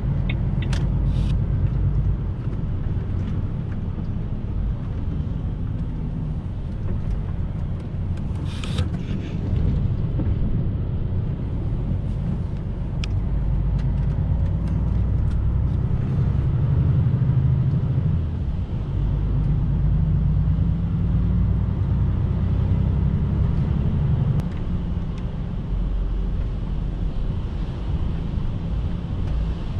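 Lorry engine and road noise heard inside the cab while driving: a steady low drone with a few faint clicks and rattles, and a short hiss about nine seconds in.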